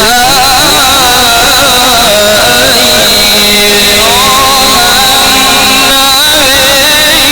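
A Qur'an reciter's voice through a loud public-address system, holding a long, ornamented melismatic note with a wavering vibrato that steps up in pitch about four and six seconds in. A steady high whine runs underneath.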